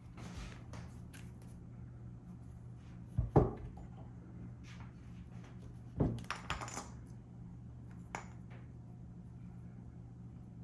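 A few sharp metallic clinks and knocks, as of tools or small metal parts being handled and set down: a double knock about three seconds in and a quick cluster about six seconds in, over a faint steady low hum.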